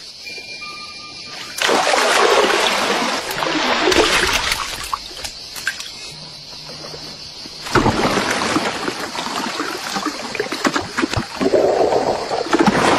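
Water splashing and rushing in two long noisy stretches, with a short break about two thirds of the way through.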